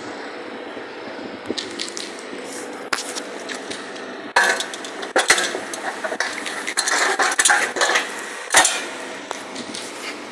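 Metal tools and parts clinking and clattering in an irregular run of sharp knocks and rattles, loudest about halfway through and again near the end.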